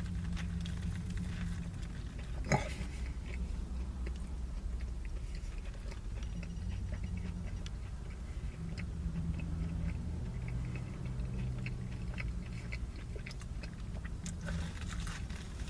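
A person chewing and biting into a crispy fried chicken sandwich, with small crunchy clicks, over a steady low rumble. A single sharp click about two and a half seconds in is the loudest sound.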